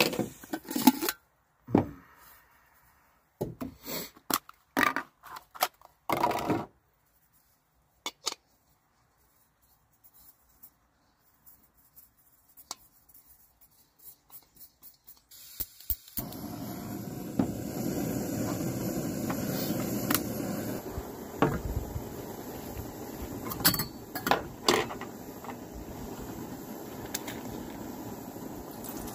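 Knocks, clicks and scraping of camp gear being handled, then a pause, then a steady rushing noise from about halfway with occasional clicks over it.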